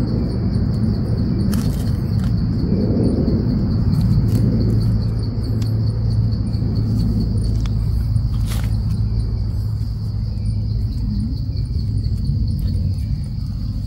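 Insects trilling steadily in a high pulsing buzz over a loud low rumble, with a few scattered clicks.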